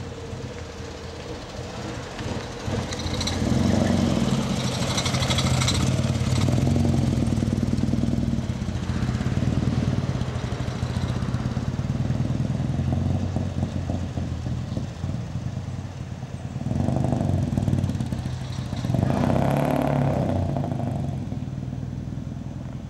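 Panhard DB HBR5's small air-cooled flat-twin engine running as the car drives, pulling harder about three seconds in and again twice near the end.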